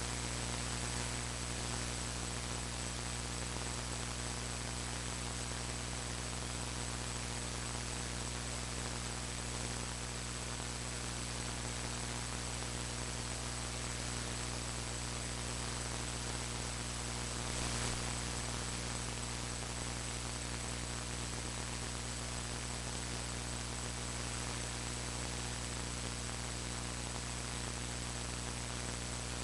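Steady electrical hum and static hiss with a thin high whine over it, and no speech: the noise of a faulty recording's audio line.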